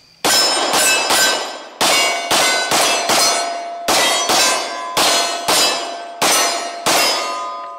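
Rapid string of about fifteen pistol shots from a Glock 23 in .40 S&W, roughly two a second, each followed by the clang of a hit steel plate target. The steel keeps ringing after the last shot near the end, fading away.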